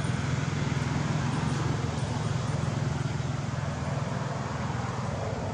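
Engine running steadily: a constant low drone with a fine rapid pulse.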